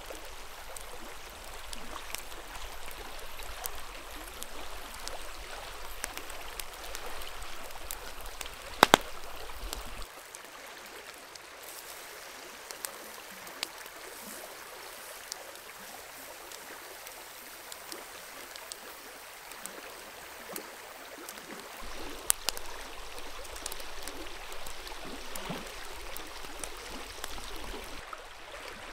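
Steady rush of a flowing stream, with scattered crackles and pops from the campfire under the grill and a few sharp clicks, the loudest a pair about nine seconds in.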